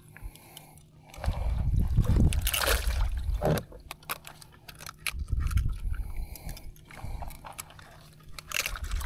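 Water sloshing and dripping in and around a kayak's cockpit, coming in swells, with scattered light clicks and knocks from handling a caught fish with a lip gripper and pliers.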